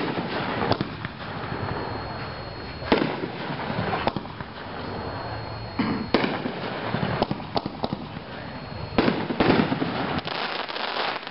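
A Firehawk 'Flipping Awesome' consumer firework cake firing its shots: a series of sharp bangs at uneven intervals, about a dozen in all, with crackling between them and a quicker run of bangs near the end.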